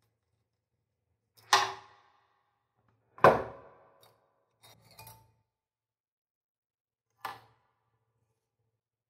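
Metal clanks from a Honda CD70 engine being stripped as the cylinder barrel is worked off its studs over the piston. There are four knocks with a brief metallic ring: the second is the loudest, the third is a softer rattle, and the last is a small clank near the end.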